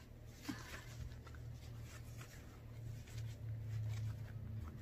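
Soft rustling and light scratching of a paper tissue being handled and rubbed across the lips to wipe off lipstick, over a low steady hum.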